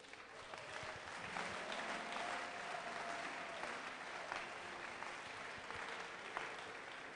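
Congregation and choir applauding, coming up quickly at the start and slowly dying away toward the end.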